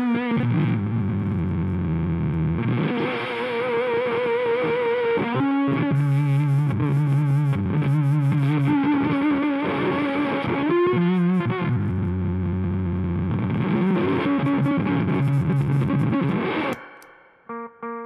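Electric guitar played through a homemade velcro fuzz pedal: loud, gated, distorted notes and chords with wavering pitch. Near the end the fuzz is switched off and the sound drops sharply to a quieter, clean note ringing.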